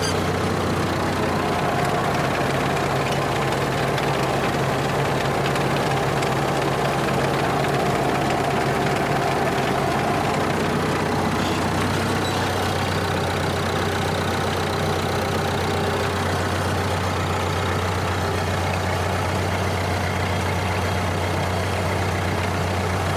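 Farm tractor's diesel engine running steadily while the tractor creeps along the field rows, heard from the driver's seat.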